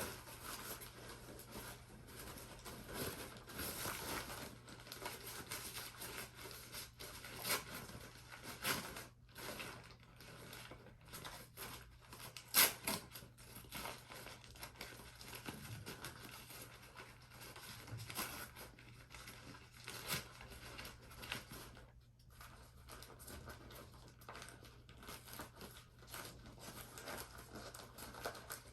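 Paper plant packaging being unwrapped by hand: irregular crinkling, rustling and tearing, with one sharper crackle near the middle.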